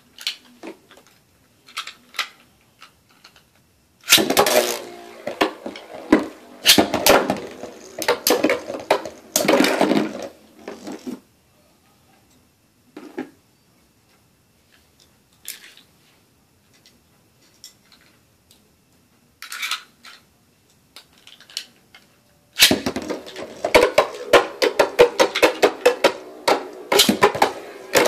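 Beyblade spinning tops, an L-Drago Destructor against a Pegasus/Dragoon combo, clattering and knocking against each other and the sides of a glazed bowl in rapid runs of clicks. One long run of clashing comes several seconds in, then a spell of only a few scattered clicks, then a second run near the end.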